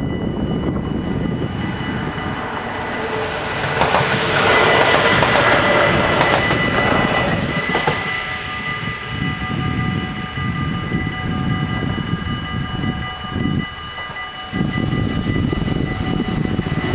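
Level crossing bells ringing steadily while a Protos electric multiple unit passes, its rush swelling and fading between about three and eight seconds in. Low rumble continues under the bells afterwards.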